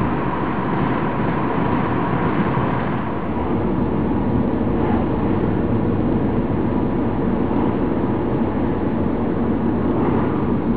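Car driving along a road, heard from inside the cabin: a steady mix of engine and road noise.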